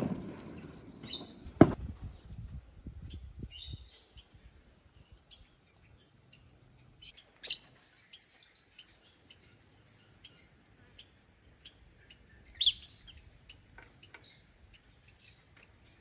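Lovebirds giving short, shrill chirps, with a busy run of quick chirps in the middle and two sharp, louder calls. One sharp knock sounds about a second and a half in.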